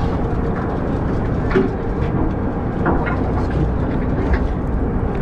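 Steady low rumble of a party fishing boat's engine running, with a faint steady hum and a few light knocks over it.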